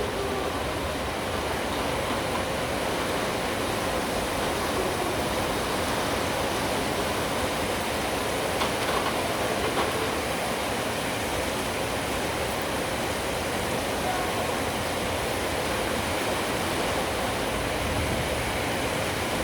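Steady rain, an even hiss that holds at the same level throughout.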